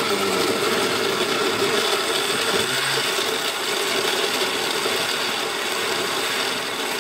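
Oster countertop blender running steadily at speed, its motor and blade pureeing chopped tomato, onion and garlic with a cup of water into a liquid salsa.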